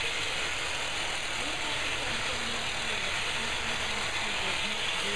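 A small motor running steadily with a hiss, with faint low pitched sounds wavering under it.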